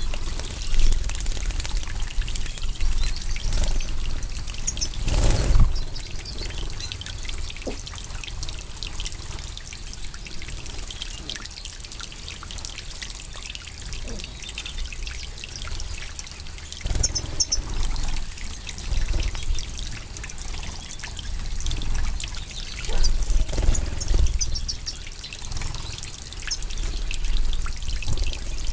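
Goldfinches bathing in a shallow pool of water: many small splashes and flutters, with short high chirps scattered through.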